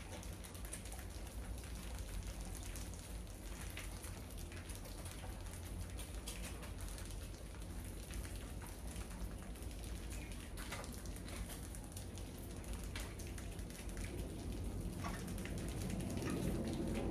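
Many mice scurrying and scrabbling over a wire-mesh cage trap and a tiled floor: a dense, rain-like patter of tiny claw scratches and clicks. A low sound swells near the end.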